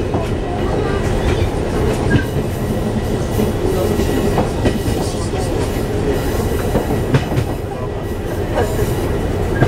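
Oigawa Railway 16000 series electric multiple unit running, heard from the driver's cab: a steady rumble of the train under way, with a few sharp clicks here and there.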